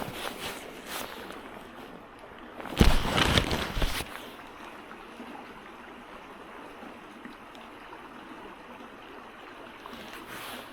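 Creek water running steadily, with a much louder rushing noise for about a second, some three seconds in.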